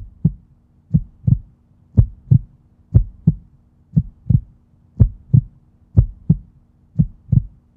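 Heartbeat sound effect: paired low thumps, lub-dub, repeating steadily about once a second over a faint steady hum.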